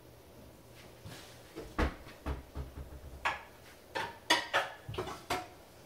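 Pots and pans clanking and knocking together as they are rummaged through in a kitchen cabinet to pull out a large frying pan: a string of sharp separate clanks starting about a second and a half in.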